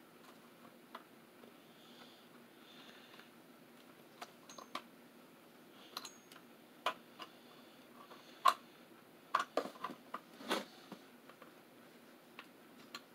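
Scattered clicks and knocks of an electric plug being fumbled and twisted into a wall socket. They are sparse at first and come thicker and sharper in the second half, the loudest about eight seconds in.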